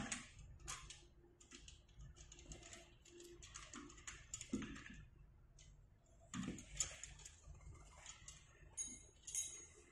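Small steel bolts being threaded and handled by hand during assembly of an elliptical trainer's frame: faint, irregular metallic clicks and short scrapes.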